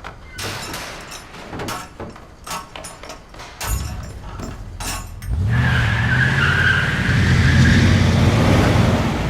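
A run of clicks and knocks, then about five seconds in an engine starts and keeps running loudly.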